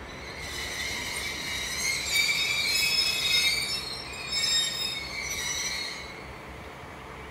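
Freight wagon wheels of a passing works train squealing on the rails. There are several high-pitched squeals at once; they swell about two seconds in, dip briefly, and fade out about six seconds in.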